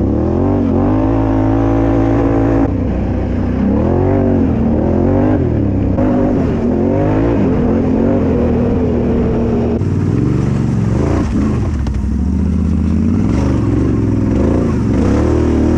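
Off-road vehicle engine revving, its pitch rising and falling again and again over a steady low rumble, in a few abruptly joined stretches.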